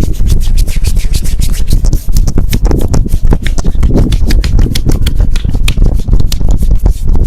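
Hands working on bare skin during a back massage: fast patting and rubbing strokes, about eight to ten quick slaps a second, over a low rumble of hand contact.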